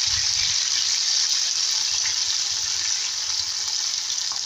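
Jackfruit slices deep-frying in hot oil: a steady, loud sizzle that eases off slightly toward the end.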